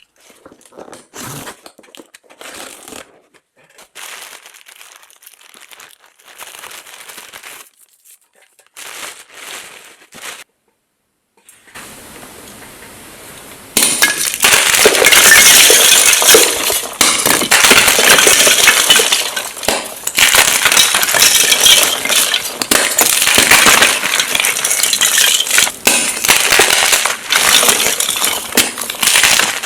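Soft, intermittent handling sounds give way, about 14 seconds in, to loud, continuous crunching and crackling of gym chalk (magnesium carbonate) blocks being crushed into powder.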